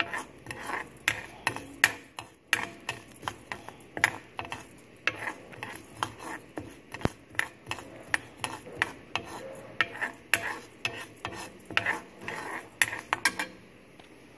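A steel ladle scraping and tapping against a black iron kadai as urad dal is stirred while it dry-roasts, with no oil. The sharp scrapes come about two to three a second and stop shortly before the end.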